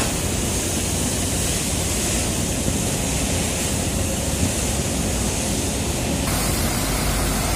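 Heavy diesel truck idling with a low rumble under a steady hiss that cuts off about six seconds in, as the engine builds up air pressure for the brakes.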